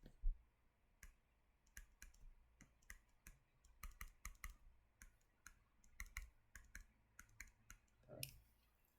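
Faint, irregular clicking, about two or three clicks a second, from computer input while drawing on screen.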